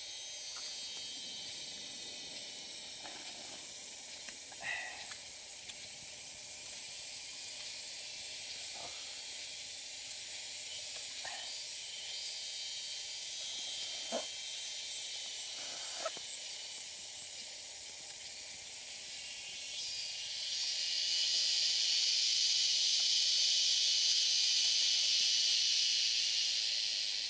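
Steady high-pitched drone of forest insects, swelling louder about twenty seconds in for several seconds and then easing off. A few faint short clicks from the eating are heard in the first half.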